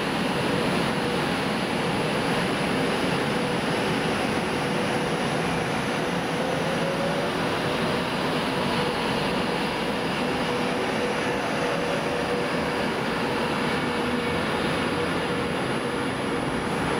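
Diesel multiple unit standing at the platform with its engine idling: a steady, even hum that neither rises nor falls.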